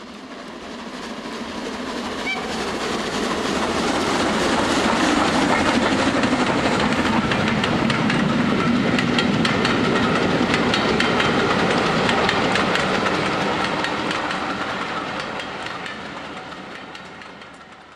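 A train running past, its wheels clattering over the rails with many rapid clicks, growing louder and then fading away.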